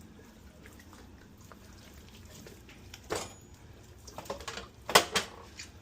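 Kitchen handling noises: a few sharp knocks and clatters, the loudest about five seconds in, over a quiet room.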